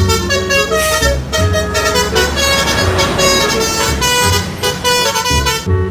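Bus 'telolet' horn: a multi-tone air horn playing a fast, stepping tune, loud, with low thumps beneath. It cuts off shortly before the end.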